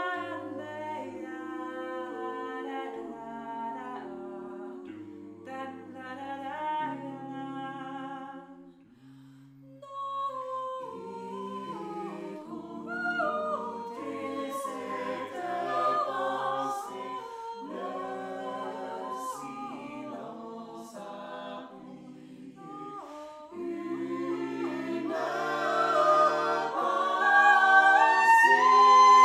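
Six-voice a cappella jazz ensemble, three women and three men, singing in harmony with no instruments. The voices thin out briefly about nine seconds in, then build to the loudest passage near the end.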